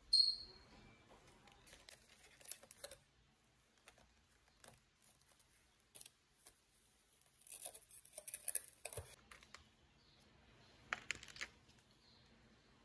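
Scattered small clicks and short scratchy, rustling handling sounds coming in a few clusters, with a brief high squeak right at the start.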